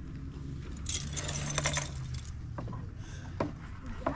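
Metal chain fish stringer with snap clips clinking and jangling as it is handled, jangling most about a second in, then a few sharp clicks near the end.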